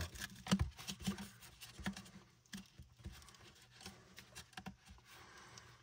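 Faint, irregular small clicks, taps and scratchy rustling of plastic and fabric as the woven-fabric grille cover of a JBL Flip 7 speaker is handled and worked back over its plastic body.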